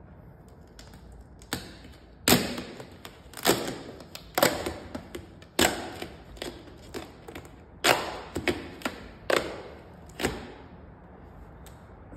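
Vinyl wrap film snapping and crackling as it is pulled up and released against a car door panel: about eight sharp snaps at uneven intervals, each with a short crackle.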